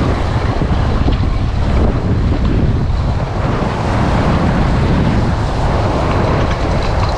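Heavy wind buffeting the microphone, a steady low rumble, over surf washing against shoreline rocks.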